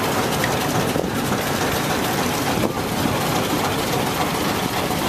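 Small narrow-gauge diesel locomotive's engine running steadily.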